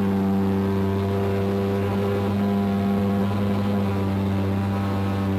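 Model airplane's engine and propeller running at a steady pitch in flight, heard up close from on board the plane.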